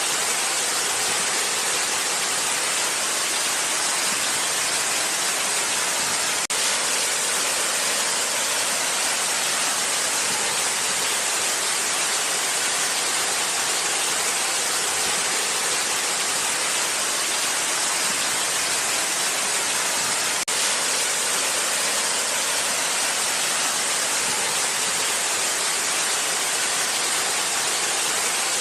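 Steady rush of a waterfall: an even hiss of falling water, strongest in the upper range with little low rumble. It dips for an instant twice, about six and twenty seconds in.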